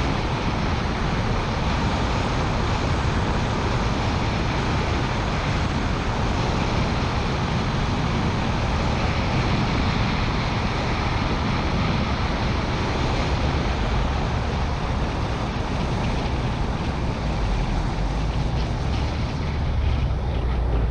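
Car driving along a country road, heard from a camera on its hood: a steady rush of wind and tyre noise over the engine's rumble. Near the end the rush fades as the car slows.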